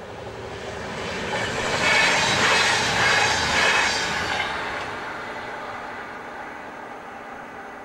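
Y2 diesel multiple-unit train passing by. Its noise swells to a peak about two to four seconds in, then fades gradually.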